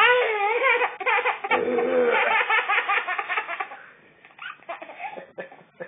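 Baby laughing in a run of loud, high-pitched peals that fade into softer, broken giggles about four seconds in.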